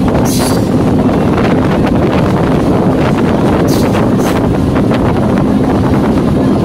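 Indian Railways EMU local train running, heard from aboard it with wind buffeting the microphone: a loud steady rumble with a low hum under it and two brief high hisses, about half a second and four seconds in.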